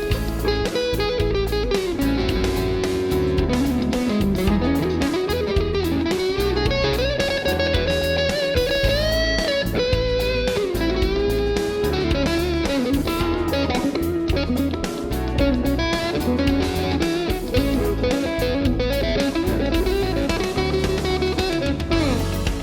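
PRS McCarty 594 electric guitar playing a lead line with string bends and vibrato, over a backing track with a steady bass and drum beat.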